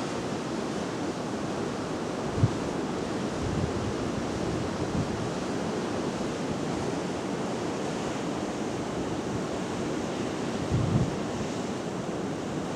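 Wind blowing across the camera microphone: a steady rushing hiss, with low buffeting thumps from gusts about two and a half seconds in and again near eleven seconds.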